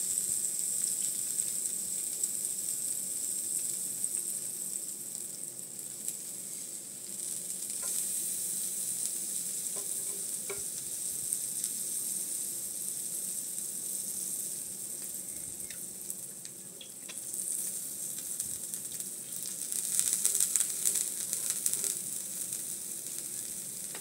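Small pancakes sizzling on a hot griddle, a steady high hiss with a few faint ticks and a busier stretch of crackling near the end.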